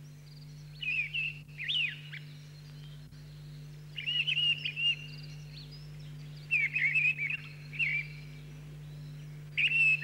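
A songbird singing short warbled phrases, four of them a few seconds apart, over a steady low hum.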